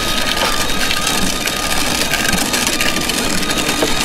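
Hard plastic wheels of a pushed toddler ride-on car rolling over a concrete path: a steady, rough, crackly rumble. A thin, steady high tone sits above it.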